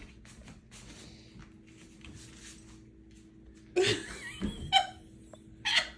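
A cat's wavering meow about four seconds in, followed by a sharp click and another short cry near the end, with only faint rustling before.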